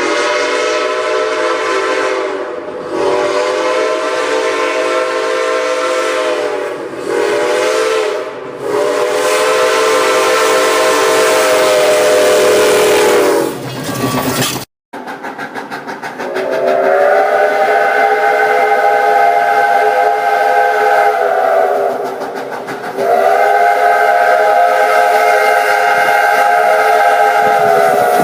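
A locomotive sounding its multi-note chime in long, long, short, long blasts, the grade-crossing signal. After a sudden break, it gives two more long blasts.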